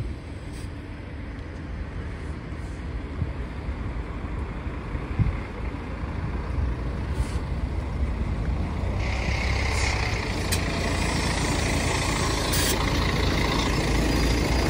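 Mercedes-Benz Citaro city bus running, a steady low rumble that slowly grows louder. About nine seconds in, a steady hiss joins it, and there are a few sharp clicks.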